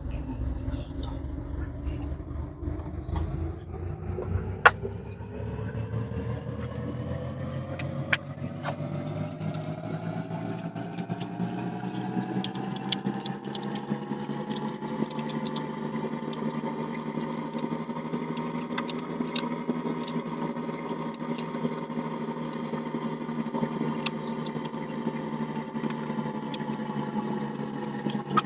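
A motor's hum that rises slowly in pitch over the first fifteen seconds or so and then holds steady, with scattered small clicks and taps of small parts being handled.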